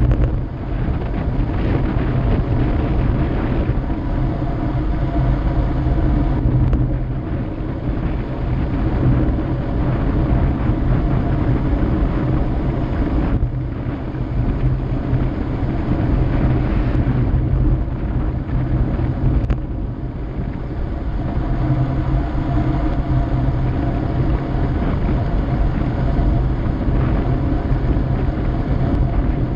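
Steady rush of wind over the microphone mixed with the rolling road noise of a vehicle descending at speed on asphalt.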